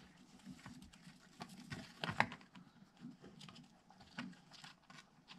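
Faint handling noise of string being threaded through the holes of a plastic lacrosse head and its mesh: scattered light clicks and rustles, with a sharper tick about two seconds in.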